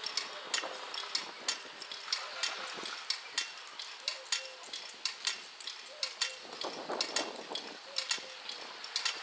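Sharp, regular ticks, about two a second, from a ticking signal at the crossing. A passing vehicle adds a swell of noise about six and a half seconds in.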